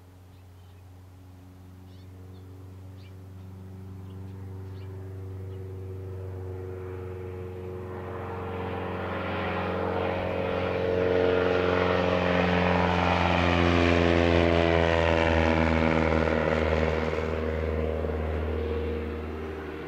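Wag-Aero Wagabond light plane's propeller engine at full power on its takeoff run and climb-out, growing steadily louder as it lifts off and approaches. It is loudest about two-thirds of the way through and eases off slightly near the end.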